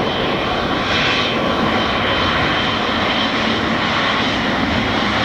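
Airbus A320's twin jet engines running during its landing rollout on the runway: a loud, steady rumble with a thin high whine over it.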